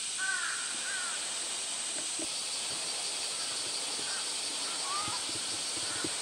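Steady high-pitched hiss of outdoor summer ambience, with a second high band joining about two seconds in, and faint short chirping calls now and then.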